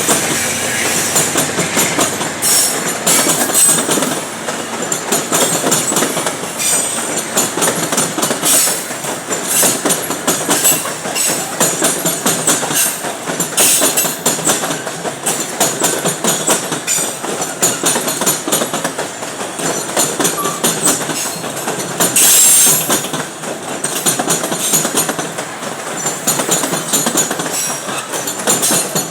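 A loaded freight train of GFD wagons rolling past, with a steady rumble of wheels and repeated clicks and clatter as the wheels cross rail joints. A short, louder high-pitched burst comes about three quarters of the way through.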